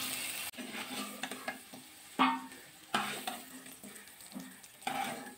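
Wooden spatula scraping and knocking against a metal pan while lifting fried potato pieces out of hot oil, with faint sizzling underneath. There are several knocks; the loudest come about two, three and five seconds in.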